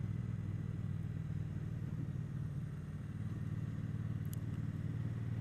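Triumph Bonneville T120's parallel-twin engine running steadily at low speed, heard from the rider's seat as a low, even hum.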